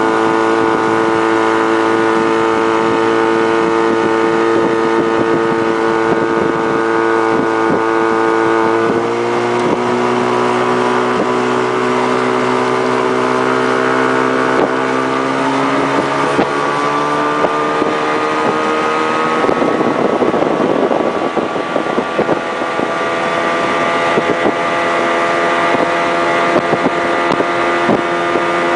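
1974 Mercury 20 hp two-stroke outboard motor running steadily under way, pushing the boat. Its pitch drops a little about nine seconds in and shifts again a few seconds later. From about twenty seconds in, a rushing noise of water and wind grows louder.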